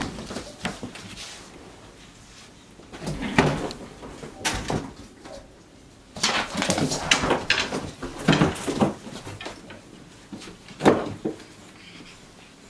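Capuchin monkeys scampering and jumping around a bedroom: irregular knocks, thumps and rustling as they land on and move across furniture. The sounds come in bursts, busiest a little past the middle, with a sharp knock near the end.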